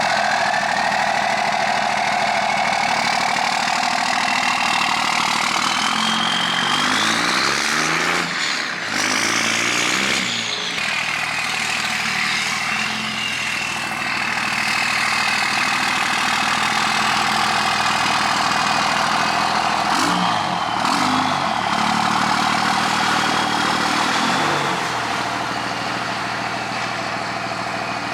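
Dodge Ram pickup's Cummins turbo-diesel engine running as the truck is moved. It revs up and down a few times, with a high whine that rises and falls with the revs.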